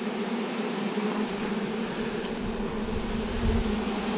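Honeybees buzzing around an open hive: a steady, even hum. A low rumble swells briefly about three and a half seconds in.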